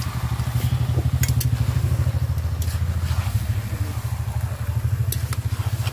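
A small engine running steadily with a fast, even low throb, the loudest sound throughout. A few sharp metal clinks of a spatula against the kadai can be heard on top.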